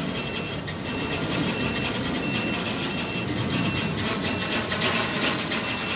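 Hexacopter's electric motors and propellers running steadily in flight, with a short high electronic beep repeating about every 0.7 seconds: a low-battery warning as the pack runs down.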